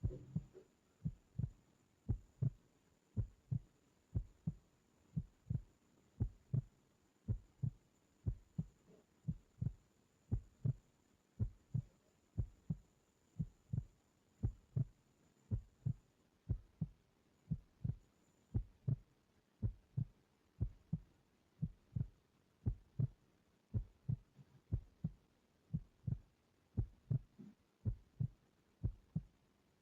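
Steady heartbeat: soft low double thumps, lub-dub, repeating evenly about once a second.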